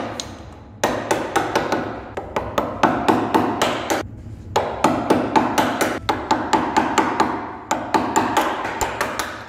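Wood chisel struck again and again, about three to four sharp blows a second with two brief pauses, chopping out the waste between saw kerfs in a softwood bench apron so the pieces split away.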